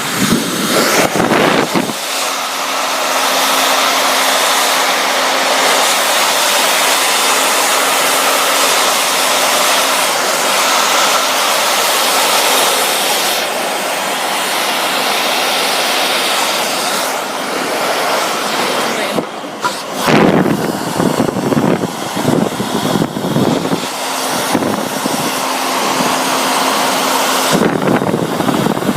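Handheld blow dryer running with a steady motor whine under a loud rush of air. From about twenty seconds in, the airflow turns gusty and uneven for several seconds, then steadies again.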